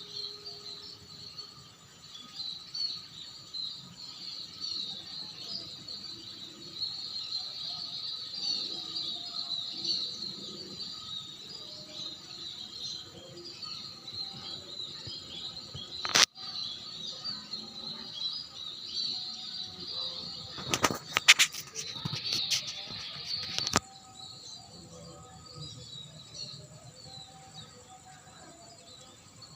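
Many swiftlets twittering together in a continuous stream of high chirps. A run of loud, sharp clicks and crackles comes about two-thirds of the way through.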